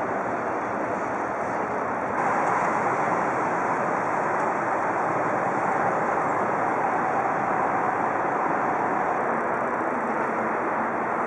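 Steady outdoor background noise with no clear single source, a little louder from about two seconds in.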